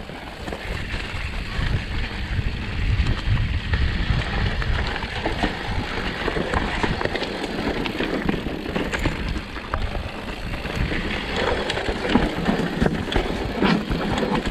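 Mountain bike riding down a rocky dirt singletrack: wind rumble on the microphone with tyres crunching over stones and the bike rattling over bumps.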